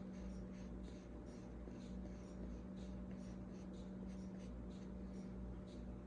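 Paintbrush strokes on watercolor paper: an irregular series of short, light scratchy dabs, over a steady low hum.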